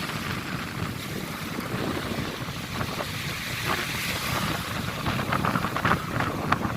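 Sea water washing and splashing, with wind buffeting the microphone; short sharp splashy crackles come through in the second half.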